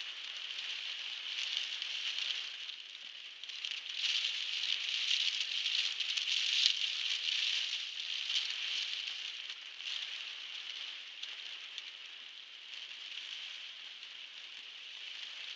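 Heavy rain pattering on a car's roof and windscreen, heard from inside the car as a steady hiss that swells to its loudest about four to seven seconds in.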